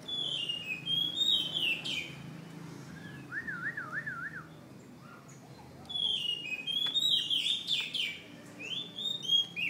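Caged oriental magpie-robin singing: quick runs of high, falling whistled notes, a lower wavering trill in the middle, then another run of whistles from about six seconds in.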